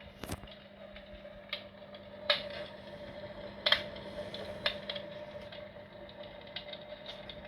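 Electric fireplace playing its simulated wood-crackling sound: irregular crackles and pops, a few of them much louder, over a steady hum.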